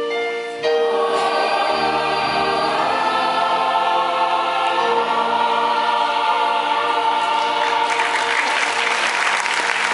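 A choir sings a sustained closing chord. Applause breaks out about eight seconds in and grows over the singing.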